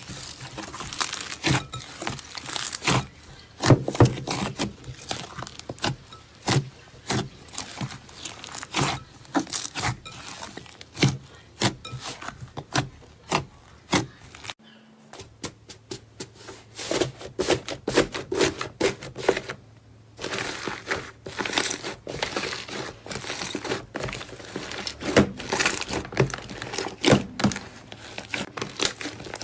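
Fluffy clay slime being worked by hand, giving a dense, irregular run of crackling pops and clicks, broken by two short pauses about 15 and 20 seconds in.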